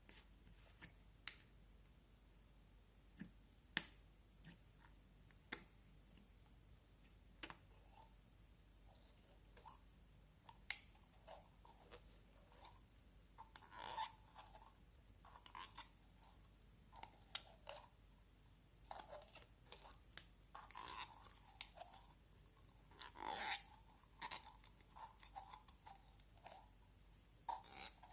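Slime being handled and mixed up close: scattered sharp clicks and pops at first, then from about halfway denser squishing and crackling as air pockets pop.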